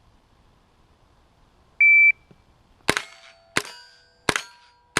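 A shot timer's start beep about two seconds in, then a rifle fired four times, roughly two shots a second, each shot followed by a short ring. The last shot lands at the very end.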